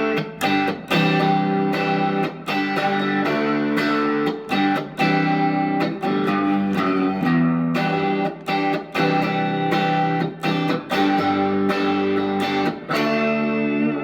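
Reverend Eastsider S electric guitar through an amp, playing a run of picked and strummed chords with many short attacks and brief gaps. The neck and bridge single-coil pickups are combined for a Telecaster-style sound.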